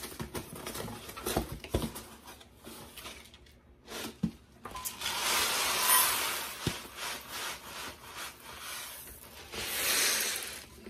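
Dry instant white rice poured from a cardboard box into a metal measuring cup, a rushing hiss of grains for about two seconds, after a few light knocks and rustles of handling. Near the end the cupful is tipped into a bowl of wet mixture with a second, shorter hiss.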